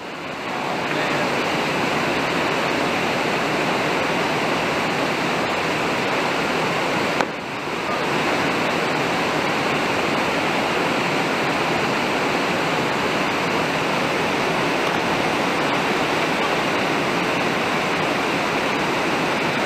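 Small waterfall pouring over rock ledges into a creek pool: a steady rushing of water that fades in at the start and drops out briefly about seven seconds in.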